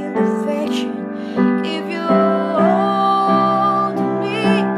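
A female vocalist singing a slow ballad over piano, holding one long note through the middle.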